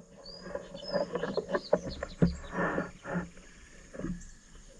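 Steel roller chain clinking and rattling in irregular clicks as it is pulled by hand through the drill's drive, with the new chain following the old.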